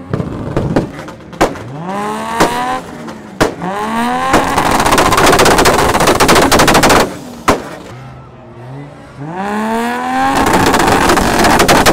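Car engine on a two-step launch limiter. It is revved up in quick rising blips with single loud bangs, then held on the limiter with rapid, machine-gun-like popping from the exhaust. The popping comes twice, about four seconds in and again about ten seconds in. The pops are from retarded timing and extra fuel burning in the exhaust, spitting flames; sustained, this is very bad for the motor.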